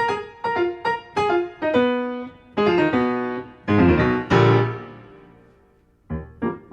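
Piano music: a melody of single struck notes building to fuller chords, the last chord ringing out and fading, with a new phrase starting near the end.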